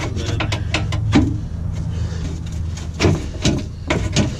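Plastic engine underbody tray of a Porsche 718 Cayman GTS being shoved forward by hand against the car's underside: a series of knocks and scrapes, a cluster early on and more near the end, over a steady low hum.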